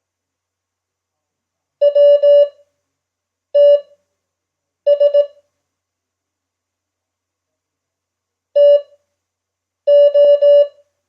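Morse code (CW) sent as a single steady beep keyed into short and long tones. Five characters come in clusters, each sent quickly with long silent gaps between them: Farnsworth-spaced code at 5 words per minute.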